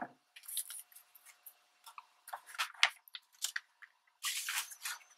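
Paper rustling and small ticks as hands handle and press a collage card of glued magazine paper on a cutting mat, with a longer rustle about four seconds in.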